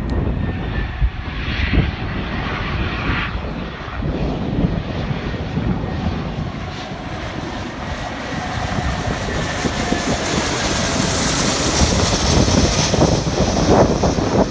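Aircraft engines of a plane coming in to land, a steady rumble with a hiss that builds and grows louder over the last few seconds as it comes nearer.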